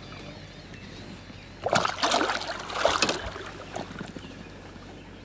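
Water splashing for about a second and a half, about two seconds in, as a hooked flathead catfish thrashes and is lifted out of the river into the boat.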